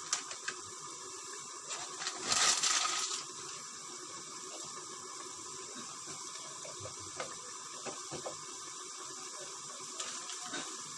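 Pot of tripe stew cooking on the stove, giving a steady hiss. A short, louder rush of noise comes about two seconds in, with a few light clicks.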